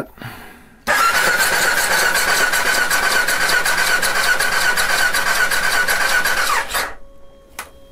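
Starter motor of an Aprilia SL1000 Falco cranking its 60-degree V-twin with the spark plugs removed and the injectors unplugged: a steady high whine with quick, even pulses for about six seconds, winding down in pitch as it stops, followed by a couple of faint clicks. With the throttle held open and no compression, the engine spins freely and blows unburnt fuel out of the flooded cylinders.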